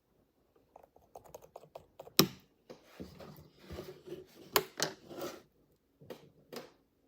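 Slime being squeezed and pressed by hand, giving a run of small crackling clicks and pops. Two sharp, louder snaps come about two seconds and four and a half seconds in.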